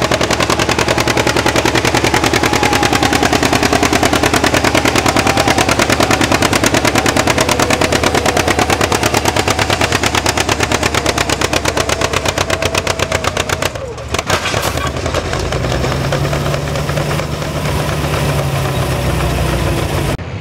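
John Deere two-cylinder tractor engine pulling a sled under full load, its exhaust popping in a rapid, even beat. About fourteen seconds in the popping breaks off and the engine drops to a steadier, lower running with a low hum.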